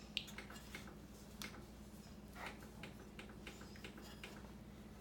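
Faint scattered clicks and light taps of small kitchen objects being handled, over a steady low hum.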